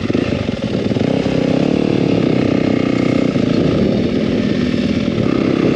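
2023 Yamaha YZ250F's single-cylinder four-stroke engine running as the bike pulls away and rides along a dirt track, the revs rising and falling with the throttle. It is heard close up from the rider's helmet camera.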